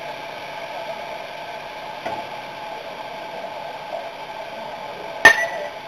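Steady background noise, then about five seconds in a single sharp crack of a bat hitting a pitched baseball.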